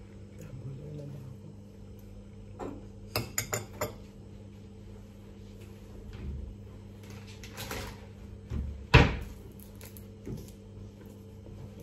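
Kitchen cupboard and counter handling: a quick run of four sharp clicks about three seconds in, a rustle near eight seconds, and a cupboard door shutting with a loud thump about nine seconds in.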